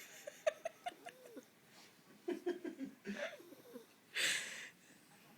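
Jack Russell Terrier wheezing and snoring in her sleep: a few short, breathy breaths, the loudest about four seconds in.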